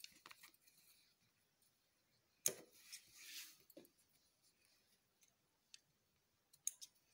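Near silence with a few faint clicks and a soft rustle of cotton fabric being handled, with one sharper click about two and a half seconds in.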